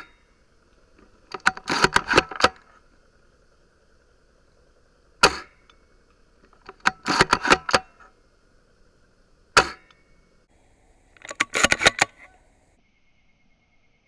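Airsoft gunfire: three single sharp shots, each answered a second or so later by a burst of rapid snapping shots about a second long.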